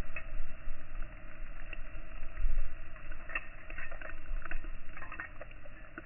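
Wind rumbling on the microphone, with scattered crunches and crackles of snow and snow-laden branches being pulled and shaken, thickest in the second half.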